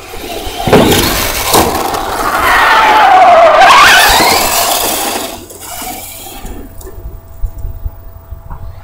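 Traxxas Slash 4x4 VXL electric RC truck driving hard close by: a loud rush of tyre and ground noise with two knocks near the start, and the brushless motor's whine falling and then rising in pitch. It fades after about five seconds, leaving a few light clicks.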